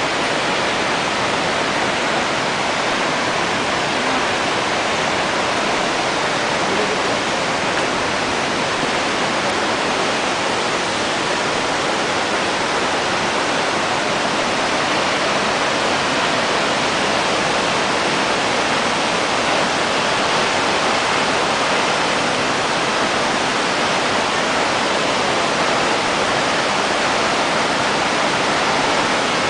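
Nachi Falls, a tall single-drop waterfall, pouring down in a steady, unbroken rush of falling water.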